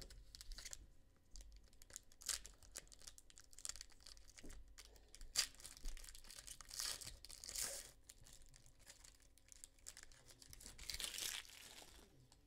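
Foil wrapper of a basketball trading-card pack being torn open and crinkled in the hands as the cards are slid out, with louder rips and rustles about five, seven and eleven seconds in.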